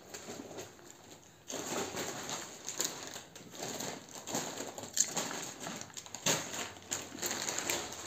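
Irregular rustling and crinkling mixed with small clicks and knocks, as packaging and other items are handled. The sound starts up about a second and a half in.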